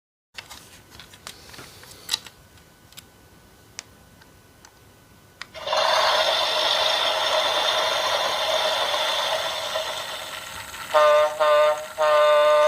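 Plastic clicks and rattles as a toy train is handled. Then its small speaker plays electronic sound effects: a loud steady rushing noise for several seconds, followed by two horn-like blasts.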